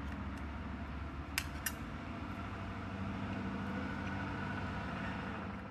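Steady low mechanical hum with two light clicks close together about a second and a half in. It fades out at the very end.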